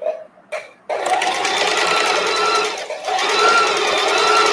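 Domestic sewing machine stitching a straight seam: two short bursts of a few stitches, then running steadily with a fast even stitch rhythm, easing off briefly about three seconds in.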